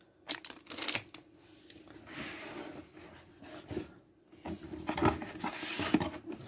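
Items and packaging being handled while a mystery box is unpacked: a few light clicks and taps at first, then rustling that gets louder over the last couple of seconds.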